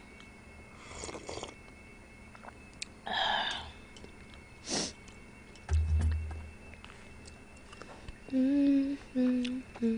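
Mukbang eating sounds: slurping sips of broth from a bowl, a sharp click and a low bump as a metal ladle works in a plastic soup container, then two short hummed notes near the end.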